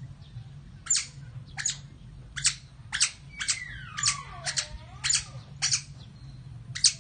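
Otters calling: about ten short, sharp, high-pitched chirps at irregular intervals, with a longer call that slides down in pitch through the middle.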